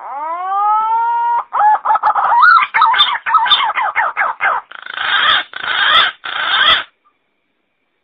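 Green pigeon (punai) call played as a hunting lure: a whistle that rises in pitch and holds, then a fast run of warbling whistled notes, then three harsh rasping notes in quick succession. It stops about seven seconds in.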